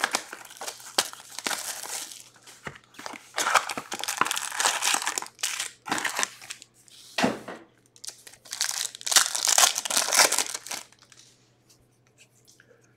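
Upper Deck SP Authentic hockey card box and packs being torn open, the foil wrappers ripping and crinkling in irregular bursts that die away about eleven seconds in.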